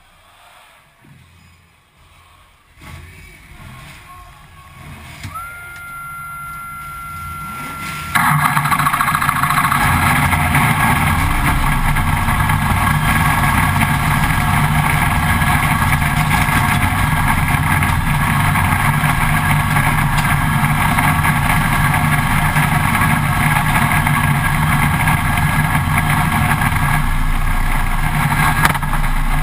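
Stock car race car's V8 engine, heard from inside the cockpit. A steady high whine starts about five seconds in. About eight seconds in the engine fires abruptly and then runs loud and steady.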